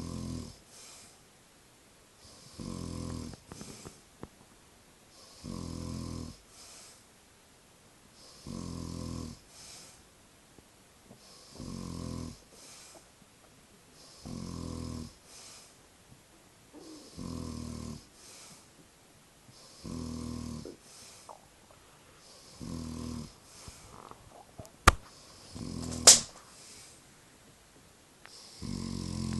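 A man snoring steadily in his sleep, a rattling snore on each breath about every three seconds. Two sharp clicks come near the end.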